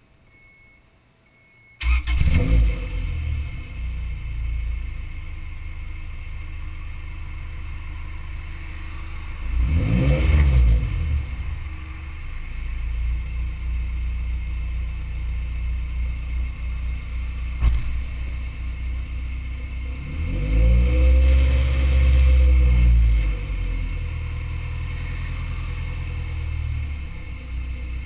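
Honda CRX's JDM B16A 1.6-litre DOHC VTEC four-cylinder, breathing through a custom side-exit exhaust (4-1 header, test pipe, resonator, SLP Loud Mouth muffler). It starts about two seconds in and idles, with a short rev about ten seconds in and a longer rev a little after twenty seconds before settling back to idle.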